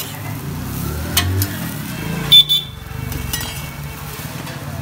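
Metal spatula scraping and striking a flat iron griddle as a cheela is turned and folded: a few sharp strikes, the loudest about halfway through with a brief metallic ring. A low steady rumble runs underneath.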